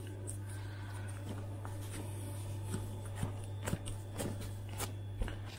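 Hands working soft bread-roll dough on a woven baking mat: small scattered taps and rustles, a few firmer ones in the second half, over a steady low hum.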